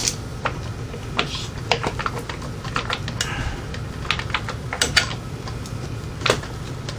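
Irregular light metallic clicks and clinks of parts being handled by hand inside a motorcycle's open primary case, over a steady low hum.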